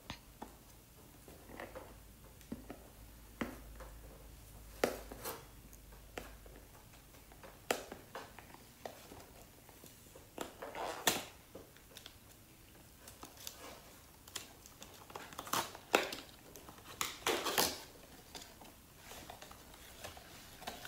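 Scissors snipping at the seal of a cardboard box, with cardboard crinkling, scraping and tearing as the box lid is worked open. The sounds come as irregular short, sharp snips and crackles, a dozen or more of them, a few louder ones in the middle and later part.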